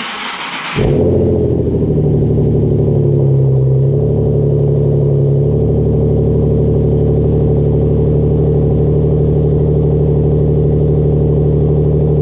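Nissan 370Z Nismo's 3.7-litre V6 cold-started through an AAM Resonated Short Tails axle-back exhaust. The starter cranks for under a second, the engine catches with a loud flare, then wavers and settles into a steady idle about five seconds in.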